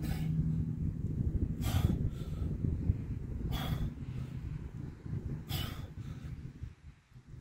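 A man breathing hard, winded from a set of pull-ups: four heavy breaths about two seconds apart, over a steady low rumble.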